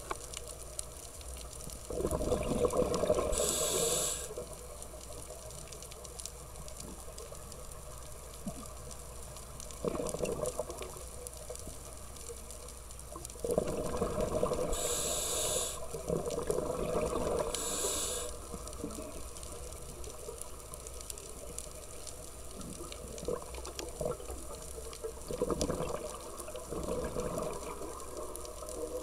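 Scuba diver breathing through a regulator underwater, heard through the camera housing: bubbling exhalations come in several surges, loudest a few seconds in and around the middle, and some carry a brief high hiss.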